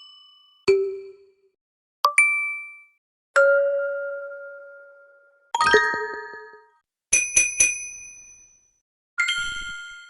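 A run of about six separate ding and chime sound effects, one after another with short gaps, each a sudden ringing tone that dies away and each at a different pitch. One rings on for about two seconds, and near the middle comes a quick triple chime.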